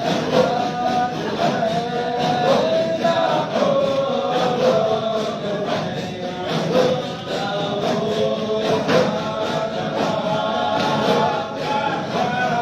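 A group of men's voices chanting together in a slow, wavering melody, a devotional dhikr chant.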